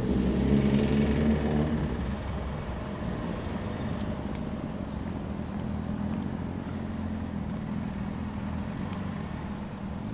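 A motor vehicle's engine running, loudest for the first two seconds, then fading to a steady low hum.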